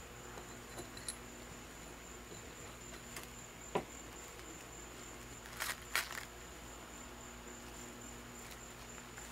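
Faint handling sounds of parts being wrapped in plastic wrap: a light knock about four seconds in and a brief crinkly rustle twice near six seconds, over a quiet steady hum and a thin high tone.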